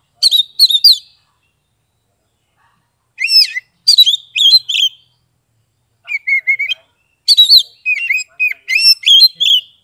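Oriental magpie-robin singing its loud, full song (what keepers call ngeplong): four bursts of rapid, varied whistled phrases separated by short pauses, the last and longest near the end.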